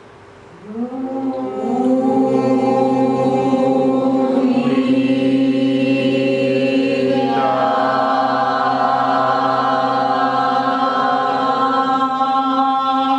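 Voices of a meditation group intoning the word "unidad" as one long held chanted note, starting about a second in. The vowel changes twice as it goes, from "u" to "i" to "a".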